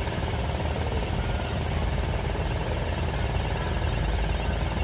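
Steady low engine rumble from a bridge girder launcher's machinery running.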